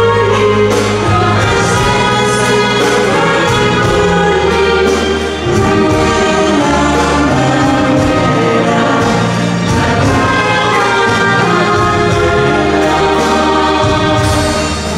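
Live dance-band music: two women singing in harmony over accordion and keyboard, with a steady beat.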